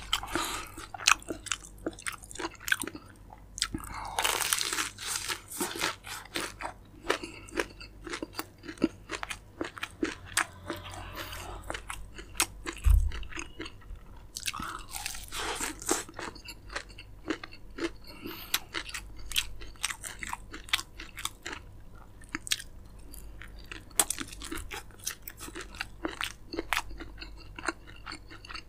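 Crunching bites and chewing of crispy fried chicken, with many irregular crisp crackles. A low thump sounds about thirteen seconds in.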